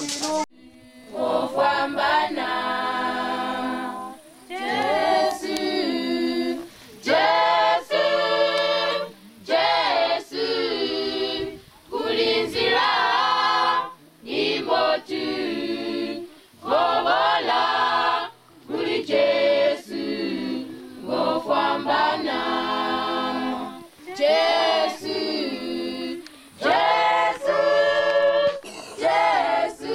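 A choir singing a gospel song without accompaniment, in phrases of about two seconds with short breaks between them.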